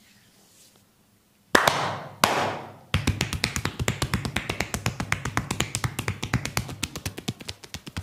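Hands striking the body in percussive massage: two loud slaps, then a fast, even run of tapping strokes, several a second.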